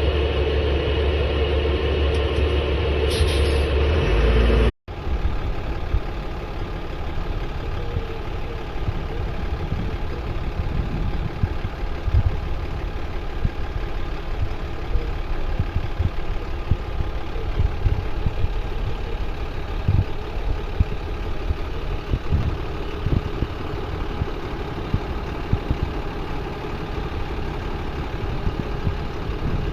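Fire truck engine running: a steady low hum for the first few seconds, then, after an abrupt cut, a rougher rumble scattered with short knocks and bumps.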